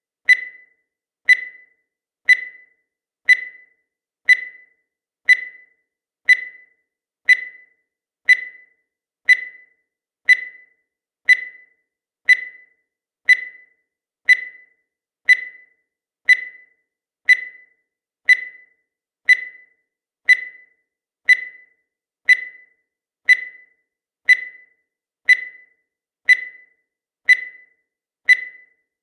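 Countdown timer's beep, a short high blip once a second, each dying away quickly, evenly spaced throughout.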